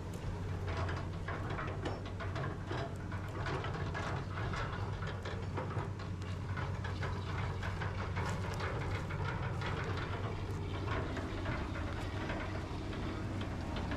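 Excavator's diesel engine running steadily, with irregular metallic clanking and scraping from the machine at work.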